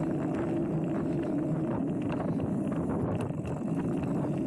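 Mountain bike rolling along a dirt trail: steady tyre and wind noise on the microphone, with frequent small clicks and rattles from the bike.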